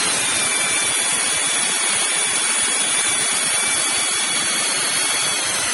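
Pneumatic air ratchet running on a car wheel's lug nut: a steady rush of air with a thin whine through it, and no clicks.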